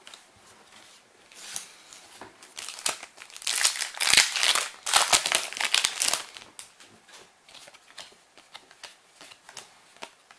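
Foil wrapper of a Yu-Gi-Oh booster pack crinkling as it is torn open, loudest for about three seconds in the middle, then light clicks and rustles as the cards are handled.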